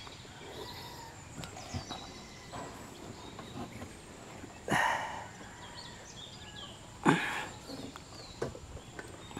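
Quiet outdoor ambience with faint bird chirps, broken twice, about two and a half seconds apart, by short noisy bursts of handling: a man shifting in a small plastic boat and picking up a metal bowl on the grassy bank.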